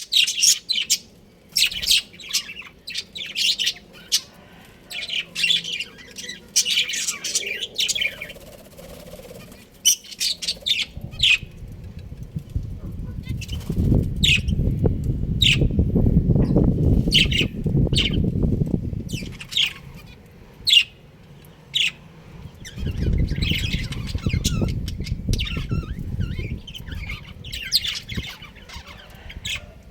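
Budgerigars chirping in short, quick calls throughout. Two stretches of low rumbling noise, one in the middle and one shortly after, are louder than the birds.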